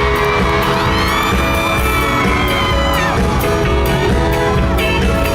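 Loud live pop music from the stage with a heavy, steady beat, and high wavering screams from the audience over it.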